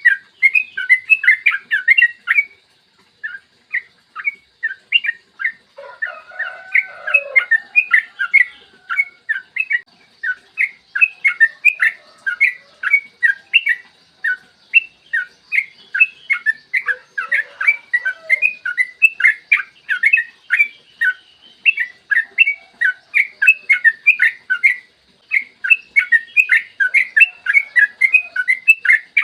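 Yellow-vented bulbul (trucukan) in full song: a long, fast run of short, clear chirping notes, about three to four a second, with barely a break. A lower, rougher call comes in about six seconds in.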